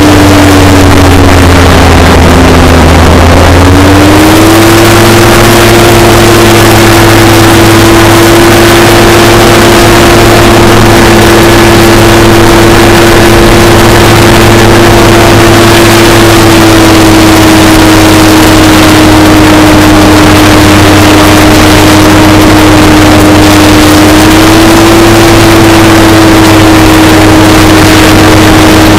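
Hovercraft engine and propeller running under way, its reduction gearbox freshly repaired: a loud, steady drone over a rushing noise. The pitch sags about two seconds in and climbs back up about four seconds in, eases a little midway and picks up again near the end.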